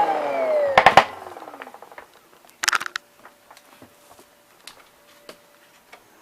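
Garry GL100 upright vacuum's motor winding down after being switched off: a falling whine that fades away within the first two seconds. A few sharp clicks come about a second in and a short clatter near three seconds, then only faint ticks.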